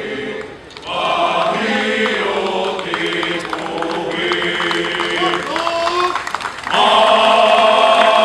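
A column of marching firefighters singing together in chorus, men's voices in unison. The singing drops out briefly about half a second in and comes back louder near the end.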